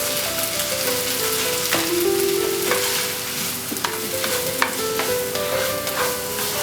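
A pan of garlic, onion and tomato paste frying and sizzling as it is sautéed and stirred, with the spoon clicking against the pan several times.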